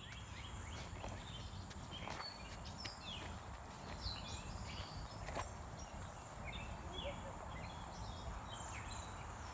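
Quiet outdoor ambience: a steady low rumble with many short, high chirps scattered throughout and a few faint taps.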